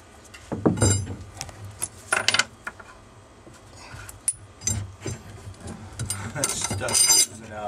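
Long steel threaded rod scraping and knocking as it is pushed by hand through drilled holes in wood, with a few brief ringing metallic clinks, the loudest near the end.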